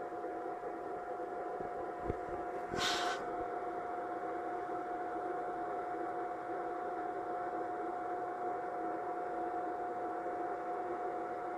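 RGB laser show projector running: a steady whirring hum with a constant high-pitched whine. A faint click comes about two seconds in, and a short hiss about three seconds in.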